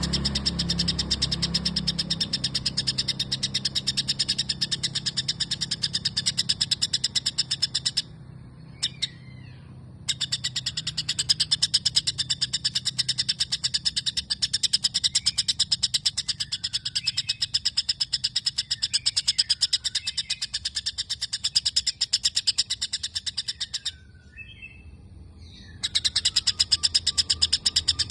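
White-rumped shama singing a long run of fast, rapidly repeated sparrow-like chirps, its mimicry of the Eurasian tree sparrow. The run breaks off twice, about 8 and 24 seconds in, and softer gliding whistles are heard in the breaks.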